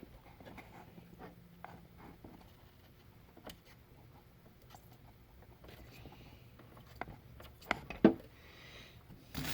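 Scattered light taps and clicks of small hand tools handled at a workbench while soldering a TV power board, with one sharper click about eight seconds in.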